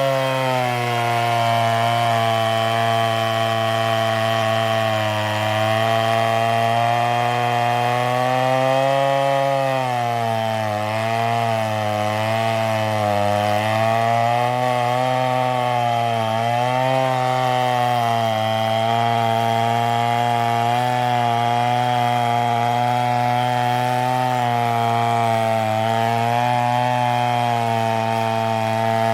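Large two-stroke chainsaw (an MS720) running at high revs while cutting a big tree, a steady loud engine note. Through the middle its pitch dips and wavers repeatedly as the chain is loaded in the cut, then steadies again.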